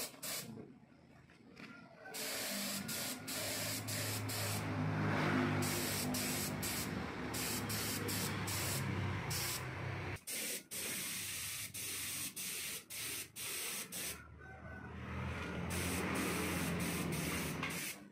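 Compressed-air spray gun spraying finish coat: a steady hiss that starts about two seconds in and runs in long bursts, with short breaks as the trigger is let go, over a low hum.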